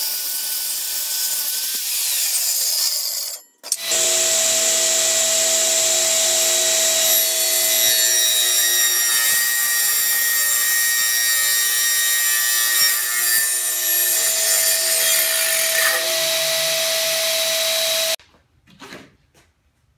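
A Craftsman circular saw cutting plywood, which cuts off abruptly about three and a half seconds in. Then a radial arm saw runs and cuts through plywood for about fourteen seconds, a steady motor whine under the cutting noise, and stops abruptly near the end.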